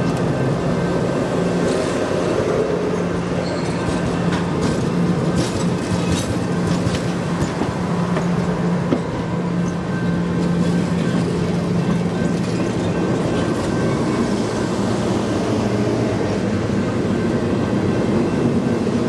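Stainless-steel passenger cars rolling past close by: a steady rumble of wheels on the rails with a low hum and scattered sharp clicks.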